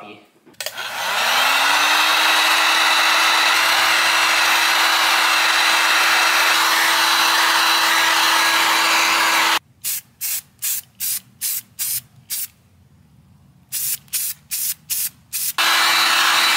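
Spray paint hissing from the nozzle: one long continuous spray of about nine seconds, then a run of short quick bursts about three a second, a brief pause, more short bursts, and a steady spray again near the end.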